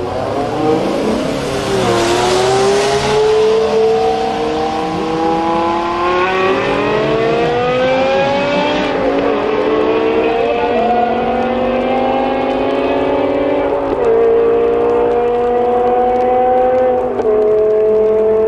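Two cars launching from a standstill and accelerating hard: a BMW M5 E61 Touring's V10 through a KKS race exhaust alongside a second car. The engine notes climb in pitch and drop back at each upshift, several times over.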